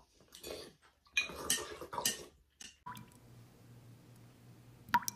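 Metal spoons scraping and clinking against soup bowls in quick, irregular strokes as people eat hurriedly. After about three seconds this gives way to a faint steady hum, and a single sharp hit comes near the end.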